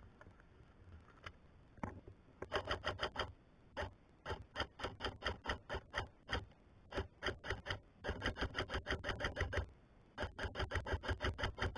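Airsoft gun firing in short bursts of full-auto: runs of rapid, evenly spaced shots, about eight a second, starting and stopping five times.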